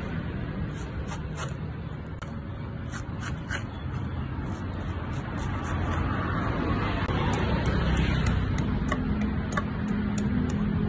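Steady low rumble of street traffic, with short crisp clicks as a long knife slices strips of husk off a young coconut, coming faster in the second half.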